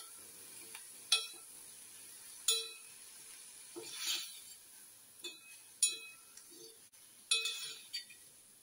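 A metal spoon stirring and scraping diced vegetables and ragi flour around a metal uruli, clinking against the pot every second or two while the mixture is sautéed.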